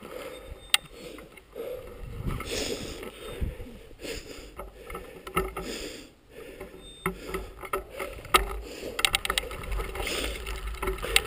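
Bicycle rolling over a gravel carriage road: the bike rattling and ticking over the bumps, with a few sharp clicks and a low rumble that grows near the end.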